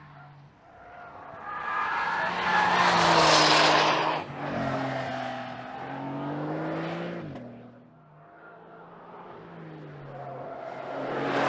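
2025 Porsche 911 Carrera GTS's 3.6-litre flat-six engine and exhaust accelerating through the revs. It is loudest about three seconds in as it comes close, then pulls with a slowly rising note that cuts off sharply about seven seconds in, and builds again near the end.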